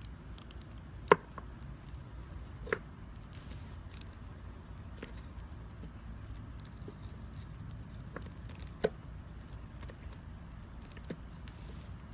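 Hands handling a small plastic tub of slime and poking the slime, making scattered sharp clicks and pops. The loudest come about a second in, near three seconds and near nine seconds, over a steady low hum.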